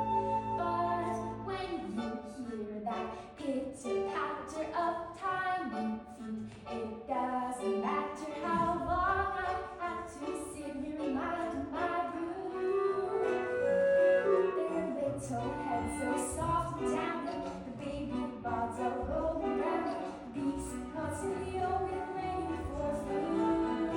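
A girl's solo singing voice performing a musical-theatre song, with held notes over instrumental accompaniment.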